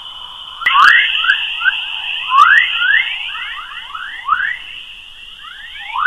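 Electronic space sound presented as the sound of the Moon: a steady high whine under a continual run of quick rising chirps, several a second, with a few sharp clicks. It gets louder about two-thirds of a second in.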